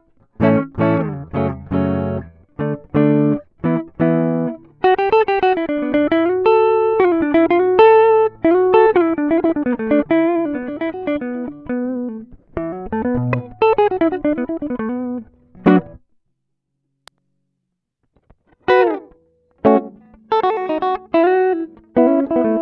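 D'Angelico Atlantic Premier electric guitar played clean and dry, its direct signal going straight into an audio interface with no effect on it: the unprocessed reference tone for an echo pedal test. Short plucked chords come first, then a melodic line with string bends and vibrato. Near the end comes a pause of almost three seconds, then more bent notes.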